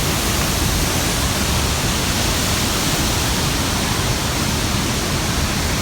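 The Pailón del Diablo waterfall rushing close by, a steady, extremely loud wash of falling water that fills everything from deep rumble to hiss without a break.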